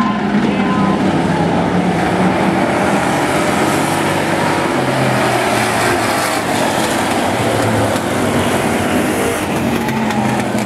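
Several race cars' engines running together around an oval track, loud and continuous, with overlapping engine notes rising and falling as the cars pass.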